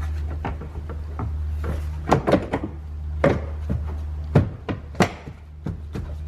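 Plastic tail light housing knocking and clicking against the car body as it is lined up and pushed into place: a scatter of sharp knocks, the loudest about four and five seconds in, over a steady low hum.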